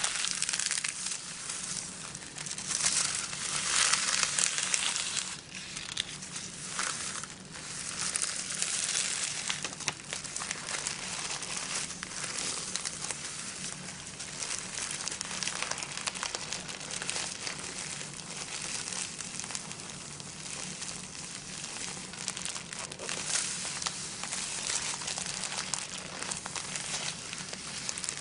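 Thin gift-wrap tissue paper crinkling and rustling as hands fold, lift and smooth the sheets. The crinkling is loudest in the first ten seconds or so, then goes on more softly and evenly.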